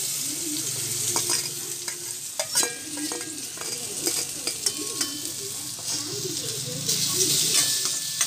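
Chopped jackfruit sizzling in hot ghee in a steel pan, stirred with a metal ladle that clicks and scrapes against the pan. The frying hiss swells briefly near the end.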